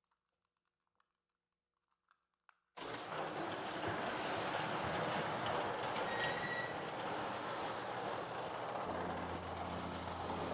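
Near silence with a few faint ticks, then nearly three seconds in a loud, steady rushing vehicle noise starts abruptly. A brief high tone sounds about halfway through, and a steady low hum joins near the end.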